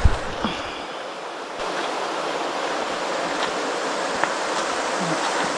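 Steady rush of water from a mountain waterfall and its stream, growing louder about a second and a half in, with a few faint ticks.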